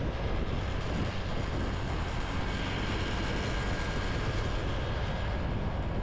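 Wind rushing over the microphone on a moving motorbike, with the bike's engine running steadily underneath.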